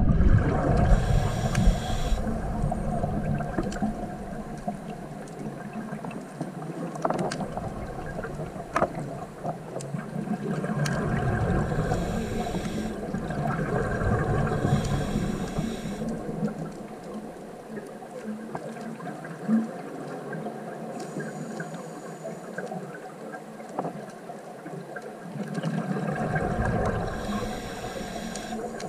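A scuba diver's breathing heard underwater: exhaled bubbles from the regulator rush and gurgle in swells lasting a few seconds, at the start, twice in the middle and again near the end, with a long quieter stretch between. Faint scattered clicks sound in the water throughout.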